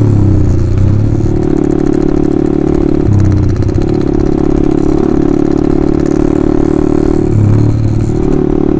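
Honda CBR150R's single-cylinder four-stroke engine running loud through an Austin Racing aftermarket exhaust while being ridden, its note dropping and picking up again three times as the throttle is eased and reopened.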